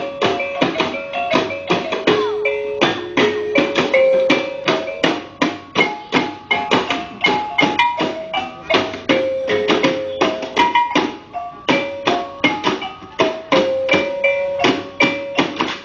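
Music for the lenso dance: a brisk, steady beat of struck, bell-like pitched notes over drumming, about three strikes a second.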